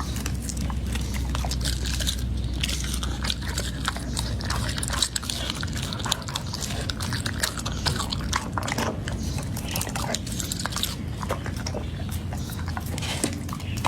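Labrador retriever crunching and chewing raw meaty bones, a quick, irregular run of bites and cracks.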